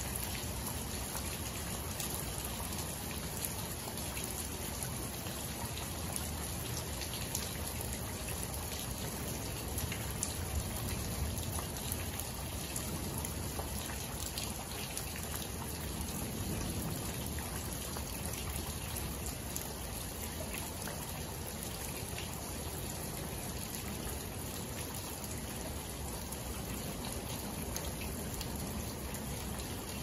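Steady rain falling onto puddles of standing water on saturated clay ground, with individual drops ticking throughout.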